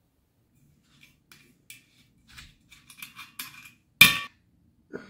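Glass liquor bottle handled on a tabletop: a string of small taps and clinks, then one loud, sharp clink about four seconds in, and a softer knock just before the end.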